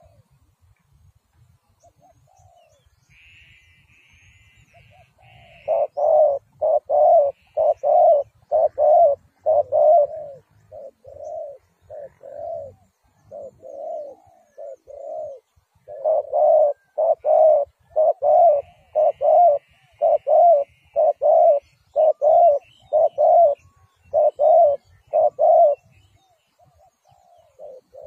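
Spotted dove cooing: a long string of repeated coos, about two a second, in two runs. The first starts about six seconds in and the second follows a second after it ends, stopping shortly before the end.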